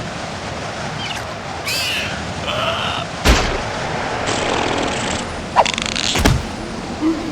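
Cartoon slapstick sound effects: short swishes and squeaky sliding sounds, with a hard thump about three seconds in and two more sharp hits around six seconds in.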